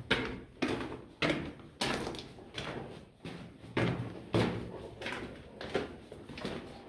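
Footsteps of a person walking along the dusty dirt floor of a narrow mine tunnel, a steady pace of a little under two steps a second.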